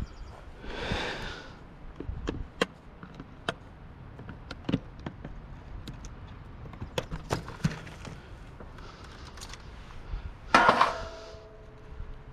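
Scattered clicks, taps and knocks of parts and tools handled while a water cooler is taken apart for scrap, with one louder, longer burst of noise about ten seconds in.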